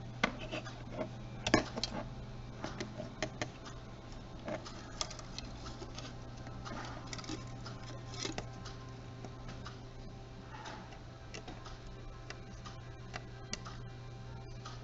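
Small irregular clicks and taps of camcorder parts being handled and fitted back together during reassembly, busiest in the first few seconds and sparser after, over a steady low hum.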